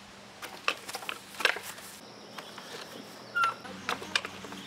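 Birds chirping in many short calls over a steady low hum, with a louder short sound a little after three seconds.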